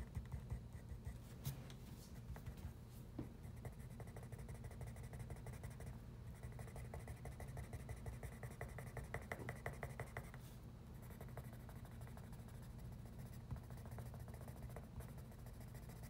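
Soft graphite pencil scratching on paper in quick, short shading strokes, laying in dark tone.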